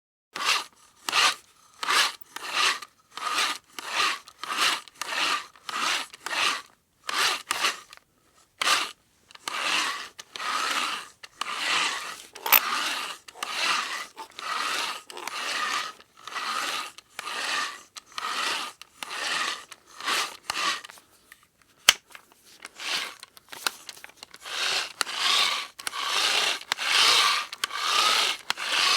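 Manual hand drill boring, a grinding rasp in repeated strokes. Short, evenly paced strokes at first, then longer, denser ones, with a brief pause and a single sharp click about two-thirds of the way through.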